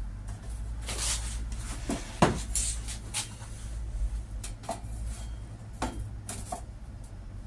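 Scattered knocks and clanks of metal parts and tools being handled on a workbench, the loudest knock about two seconds in.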